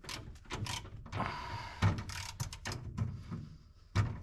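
Hand tool working a steering-column bolt: a string of irregular metal clicks and clinks, with a scraping rasp a little after a second in and sharper knocks near two seconds and near the end. The 12 mm tool is on a bolt that turns out to be 11 mm.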